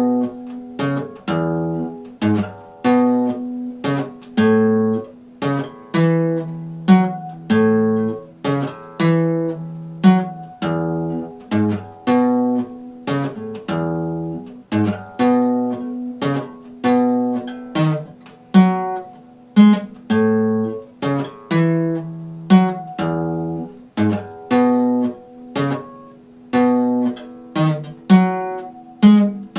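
Epiphone steel-string acoustic guitar strummed in a steady rhythm, the chords changing every few seconds.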